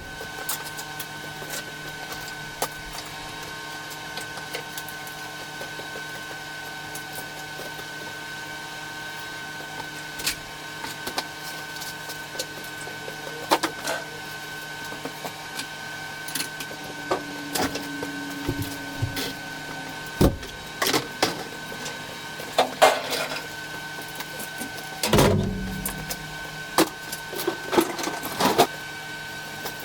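Items and tools knocking and clattering as they are picked up, moved and set down, over a steady electrical hum with a constant high whine. The knocks come more often in the second half, with a louder rumbling thud about 25 seconds in.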